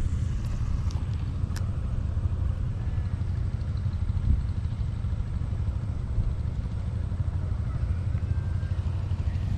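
Wind buffeting the microphone: a steady, unevenly fluttering low rumble, with a light click about a second and a half in.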